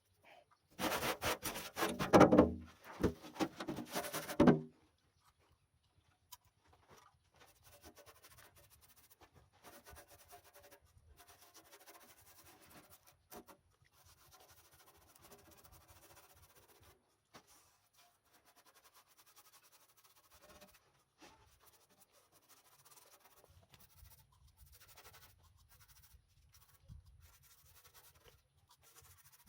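Loud rapid scraping for the first few seconds, then faint, irregular rubbing and scratching.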